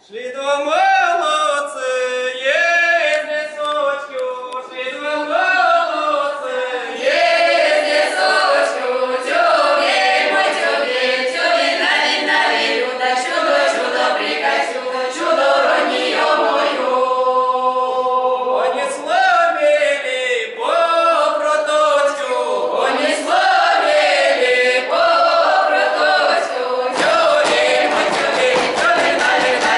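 Mixed women's and men's voices of a Russian folk ensemble singing a round-dance (khorovod) song a cappella. The singing starts abruptly right at the beginning and carries on loudly throughout.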